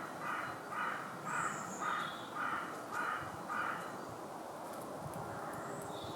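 Male domestic pigeon giving a run of about seven short, high-pitched, harsh coos, roughly two a second, that stop about four seconds in.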